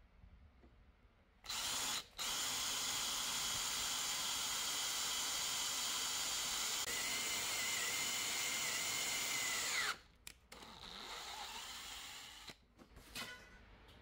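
Power drill driving a self-drilling hex-head screw into a steel bar. The motor starts about a second and a half in, stops briefly, then runs steadily for about eight seconds. A high squeal joins in over the last few seconds before the motor winds down. Afterwards there is softer handling noise and a few light clicks.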